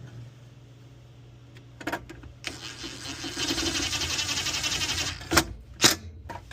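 A ratchet on a 10 mm socket runs a bolt down in a fast, steady stream of clicks for about two and a half seconds, tightening the battery ground wire. Two sharp knocks follow near the end.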